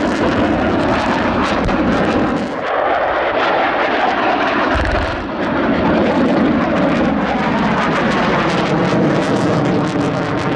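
Loud, steady jet noise from fighter jets flying low over the airfield, with a fine crackle in it and a brief low thud about five seconds in.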